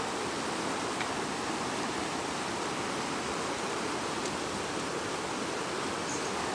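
River in strong current, rushing steadily past the bank.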